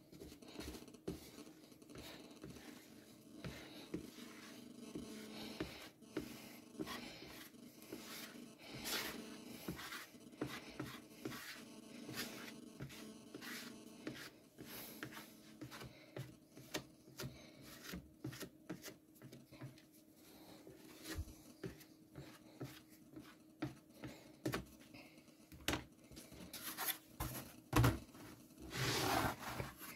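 Plastic glue spreader scraping and rubbing back and forth over a glue-coated fibreboard blank in many short strokes. Near the end a few louder knocks and a longer sliding sound as a board is handled on the bench.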